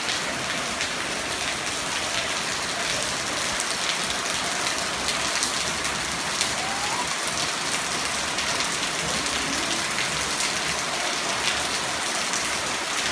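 Heavy rain pouring down steadily: a dense, even hiss of falling drops.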